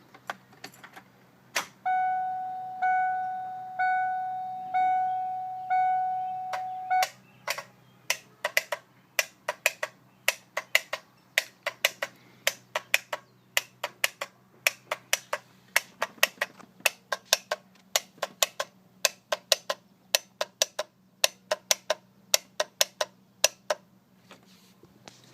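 Ford E350 bus with a 7.3L Power Stroke diesel failing to start: its dashboard warning chime sounds five times, about once a second, then the starter clicks over and over, about four times a second, without the engine cranking.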